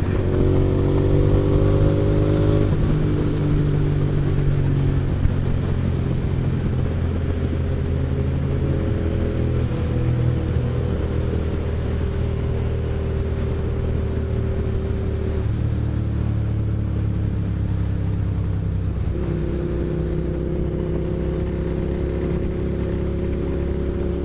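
Hyosung GT650N's V-twin engine running as the bike is ridden and slows from highway speed, its note holding steady and shifting pitch a few times with gear changes. Wind rushes over the microphone throughout.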